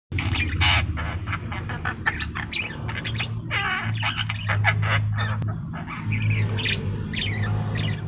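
Caged Javan myna (jalak kebo) calling non-stop in an unbroken run of short, quick notes, several a second, with some longer squawks among them. A steady low hum lies underneath.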